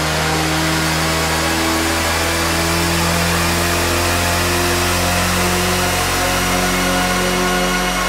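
Electronic background music: a loud, steady synthesizer drone over a dense hiss, its held notes shifting to new pitches a few times.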